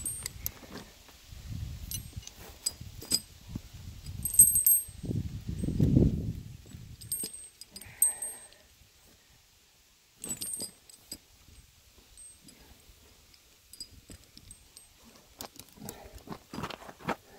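Studded steel tractor tyre chains clinking and jangling as the links are handled and hooked together, a series of sharp metal clicks with a light ringing. A low rumble runs under the first half.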